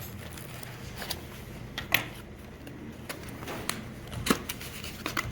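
A pocket knife slitting Scotch tape on a cardboard box, with cardboard rubbing and about half a dozen sharp scrapes and clicks.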